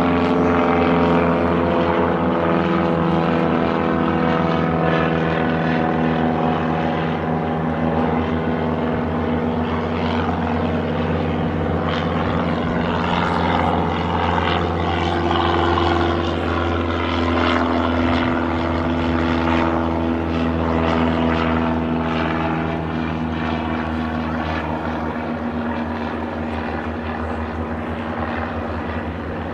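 Propeller aircraft engines running, a steady, loud drone of several tones that shifts in pitch around the middle.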